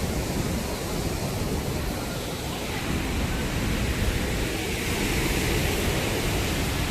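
Steady rush of river water and a waterfall, a constant hiss that turns brighter about three seconds in.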